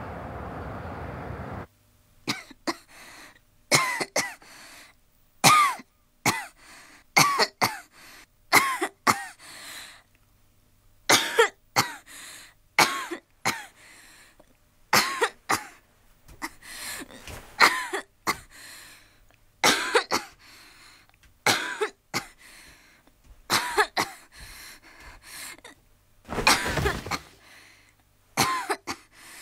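A person coughing over and over in short fits, harsh throaty coughs with pauses between, the coughing of someone with a bad cold. A steady rumbling background noise cuts off abruptly just before the coughing begins.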